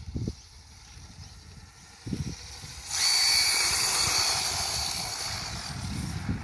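HSP Flying Fish 1/10-scale brushless RC drift car taking off at full throttle: a high electric motor whine with tyre hiss starts suddenly about three seconds in, then slowly fades as the car speeds away down the road.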